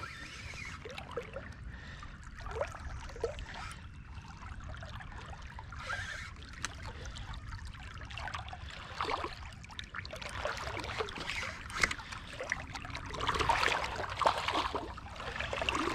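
Water lapping and splashing lightly against a plastic kayak hull, with scattered small splashes and drips over a steady low rumble.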